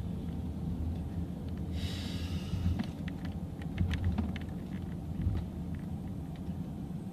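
Low, steady rumble inside a moving car's cabin, with a brief hiss about two seconds in and then a run of faint light taps, fingers on a smartphone screen.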